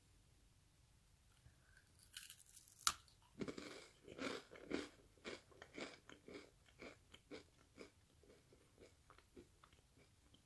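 A homemade whole-wheat cracker is bitten with a sharp crisp snap about three seconds in. It is then chewed, with a run of dry crunches about twice a second that grow fainter.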